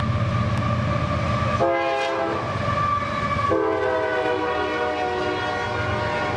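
Freight train's diesel locomotives passing with a steady low rumble, the locomotive air horn sounding a short blast about a second and a half in, then a long blast from about three and a half seconds on.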